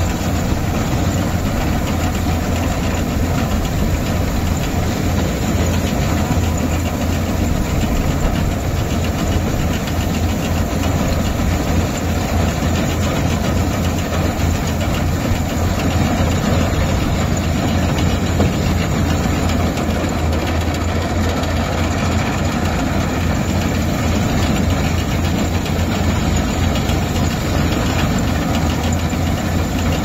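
Yanmar combine harvester running steadily while cutting rice: a loud, even engine drone with a strong low hum, mixed with the clatter of its header and threshing machinery.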